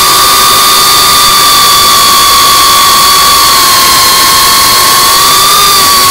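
FPV quadcopter's brushless motors and propellers whining loudly at high throttle, heard from the onboard camera over a rushing noise. The pitch holds nearly steady with small dips and rises.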